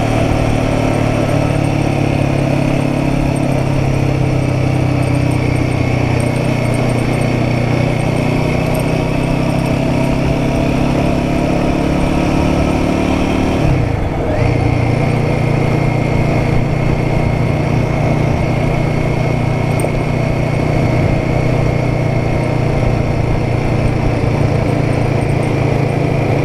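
Royal Enfield Guerrilla 450's single-cylinder engine running steadily under way on the road. About halfway through the engine note dips briefly, then steadies again.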